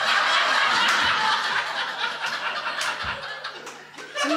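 Studio audience laughing together in response to a punchline, the laughter fading away near the end.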